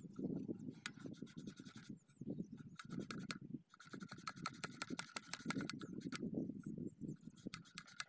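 Hands rubbing and scraping on the metal housing and collector ring of a center pivot irrigation head, with many sharp irregular clicks and rough rustling handling noise.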